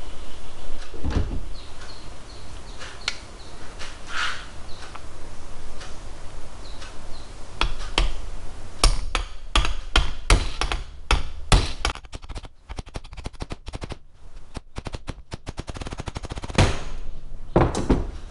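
Hammer blows on a socket driving a new ball bearing into an electric motor's end casing: a series of sharp knocks, scattered at first and coming thick and fast from about halfway through.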